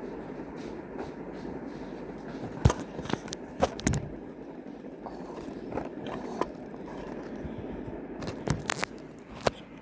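Handling of a Monopoly board game and its pieces: scattered sharp clicks and knocks, in two clusters, about a third of the way in and near the end, over a steady low background rumble.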